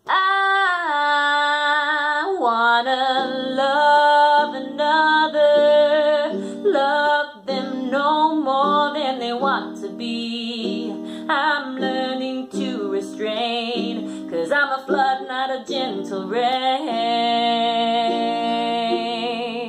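A woman singing a wavering melody with vibrato, accompanied by a strummed guitar.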